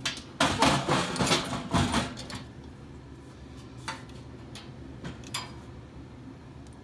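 Metal clattering and rattling inside a furnace blower housing as a hand fishes around for a dropped bolt, busy for about two seconds, then a few single clinks.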